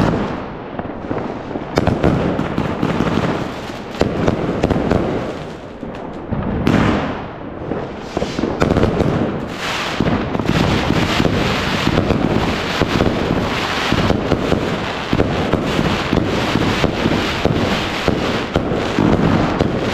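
Fireworks and firecrackers going off, a dense run of overlapping cracks and bangs that thickens into an almost continuous barrage about halfway through.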